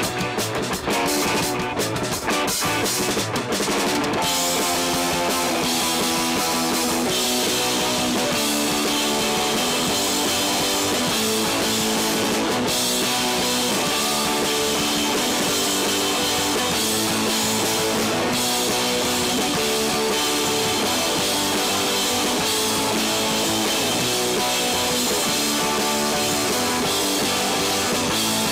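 Live rock band playing with two electric guitars, electric bass and a drum kit. A busy run of drum hits over the first four seconds or so, then guitars ringing in sustained chords over bass and a steady drum beat.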